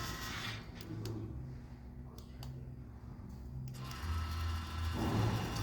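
Electric exhaust cutout valve's small motor whirring as it is switched on to test that it works.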